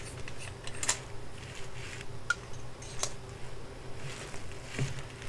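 Light clicks and clinks of small metal fountain pens, copper and brass, being handled, their caps and barrels tapping together, the sharpest click about a second in. A faint steady hum runs underneath.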